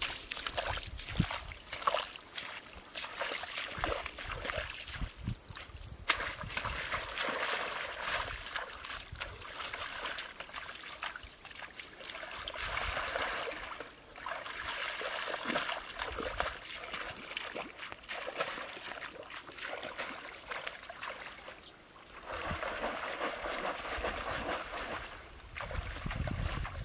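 Water splashing and sloshing as a person wades through shallow muddy water, working a bamboo basket fish trap. It comes in bouts of several seconds with short pauses between, and there are scattered small knocks and splashes.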